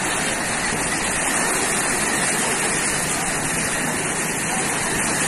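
Sea surf: small waves breaking and washing up over wet sand, a steady rushing noise.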